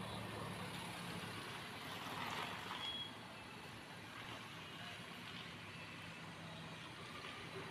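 Faint low engine hum of a Mahindra Thar SUV driving slowly, a little louder in the first three seconds.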